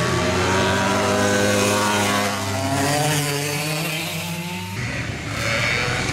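Racing go-kart engines: one kart's engine revs through the corner, its pitch sliding down as it pulls away. A little before five seconds in the sound changes suddenly to another kart's engine approaching.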